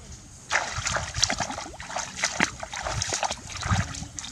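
Water splashing and sloshing, starting suddenly about half a second in and going on irregularly, as in wading or hand fishing in shallow water.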